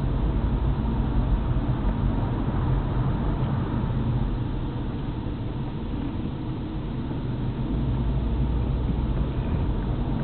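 Car engine and tyre noise heard from inside the cabin while driving: a steady low hum that eases for a few seconds midway and picks up again.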